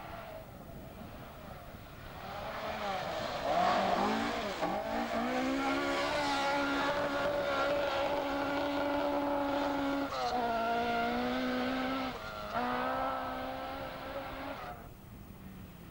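Rally car engine at high revs as the car comes through a gravel bend: the pitch swoops down and up about four seconds in, then holds high. It drops sharply about ten seconds in, breaks off briefly near twelve seconds, and fades as the car drives away.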